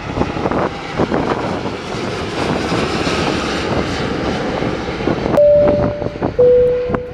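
Aircraft engine noise, a steady rush. About five seconds in, two loud steady tones follow, a higher one and then a slightly lower one, each lasting about a second, before the sound cuts off abruptly.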